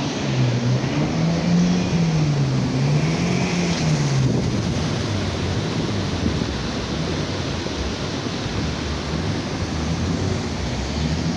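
Muddy floodwater rushing through a concrete storm canal: a steady, even rush of noise. A low, wavering hum rises and falls in pitch over the first four seconds.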